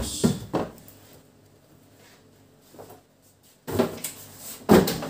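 Cardboard boxes being handled and moved: rustling scuffs at the start, a quiet stretch, then two loud cardboard scrapes near the end.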